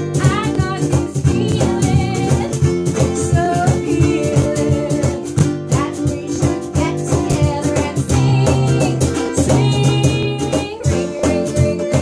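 Acoustic band playing a bouncy children's song: several strummed acoustic guitars and a ukulele over a steady cajon beat, with a woman singing at times, recorded through a cellphone's microphone.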